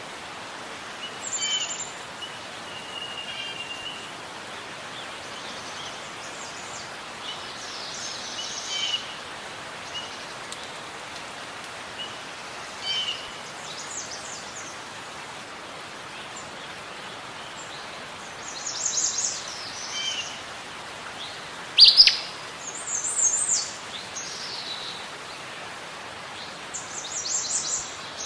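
Birds chirping and calling in scattered short phrases over a steady hiss of outdoor ambience, with one sharp, loud high note about three-quarters of the way through.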